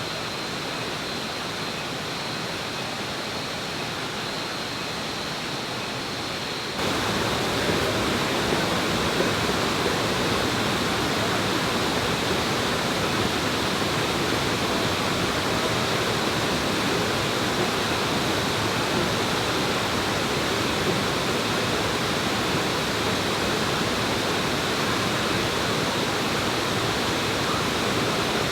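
Waterfall rushing: a steady, even noise of falling water that jumps suddenly louder about seven seconds in.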